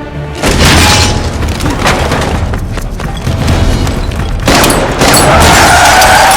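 A loud boom about half a second in, then sustained crashing, rumbling noise that surges again past the midpoint, with a high tone rising slowly near the end.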